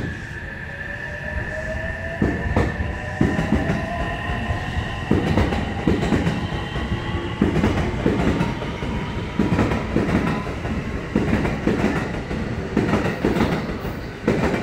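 A JR West commuter electric train pulling away past the platform and accelerating, with a whine that slowly rises in pitch. From about five seconds in, the wheels clatter over the rail joints in a regular rhythm.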